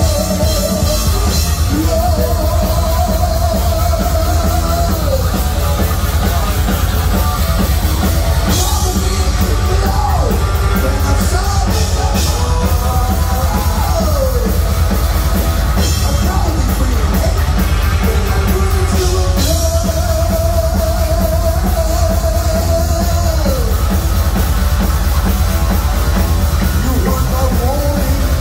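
Three-piece heavy metal band playing live and loud: distorted electric guitar, bass guitar and drum kit, with long held notes that waver in pitch and several sliding notes.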